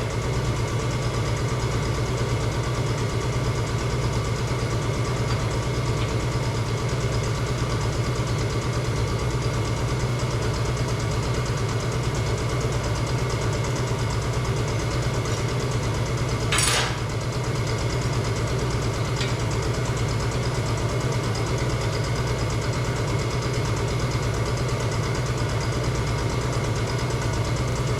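Steady low mechanical hum, like a motor running, with one sharp knock about two-thirds of the way through.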